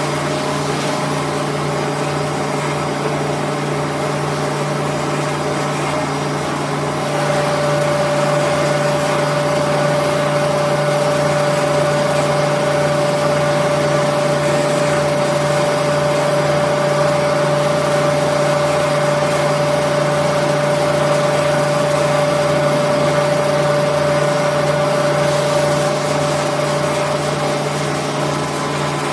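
Bench drill press motor running with a steady hum while small wooden watch parts are drilled. It gets a little louder about seven seconds in and eases back near the end.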